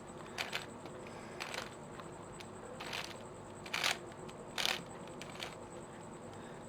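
Freshly reassembled 5x5 speed cube being turned by hand, its plastic layers clacking in a series of short snaps about once a second. It turns without popping pieces out.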